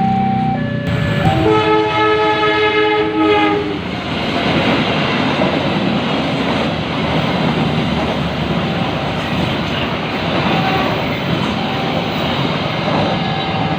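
Passing train sounding its horn in one long chord-like blast of about two and a half seconds, then the steady rumble and clatter of the train rolling past on the rails.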